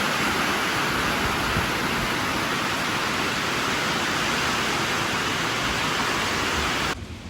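Heavy rain falling in a steady hiss, cutting off suddenly near the end.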